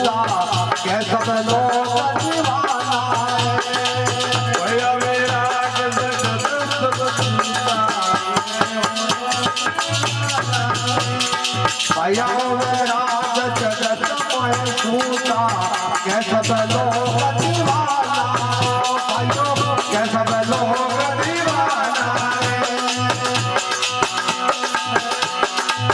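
A devotional bhajan being performed: a melodic voice line wavers over dense, fast, steady rattling from hand percussion.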